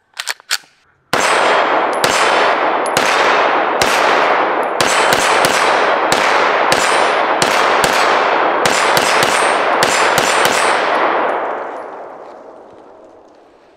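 Arsenal Strike One Speed 9mm pistol: a couple of clicks as the slide is racked, then a long string of shots at roughly two a second. The reports run together with echo and fade away over the last couple of seconds.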